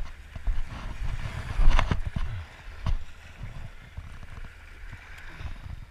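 Wind buffeting the microphone over small waves lapping, with knocks and rattles from a baitcasting rod and reel being cast and reeled in. The loudest knock or gust comes about a second and a half in.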